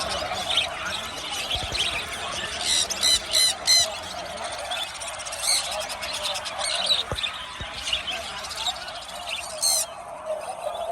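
Birds squawking in short, sharp calls, four in quick succession about three seconds in and more later, over a steady background din.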